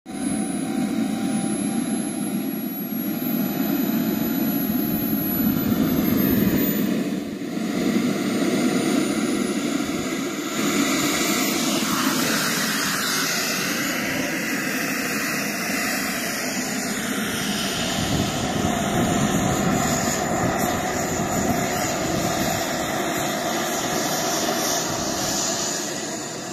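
Xicoy 90 model jet turbine running, its high whine climbing in pitch as it spools up in the first ten seconds or so. The model jet then rolls across the grass, and the turbine noise fades near the end as it moves away.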